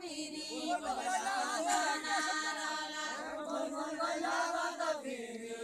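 A group of men singing a Deuda folk song together, unaccompanied, in long held notes like a chant. The line falls in pitch near the end.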